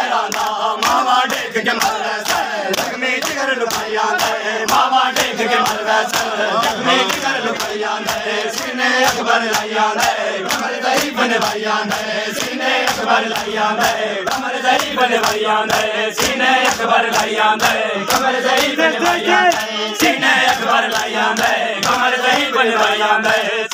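A crowd of men chanting a mourning lament in unison over a steady rhythm of sharp open-hand slaps on bare chests. This is Shia matam, ritual chest-beating in mourning.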